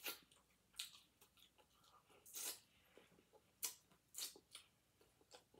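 Faint mouth sounds of eating whole fish: a few scattered wet smacks and clicks of lips and fingers as fish bones are picked from the mouth, one a little longer about two and a half seconds in.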